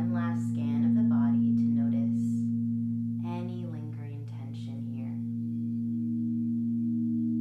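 Crystal singing bowls ringing in steady, overlapping sustained tones. A wordless voice sings over them in two phrases during the first five seconds. About five and a half seconds in, a higher bowl tone swells in as a bowl is rimmed with a wand.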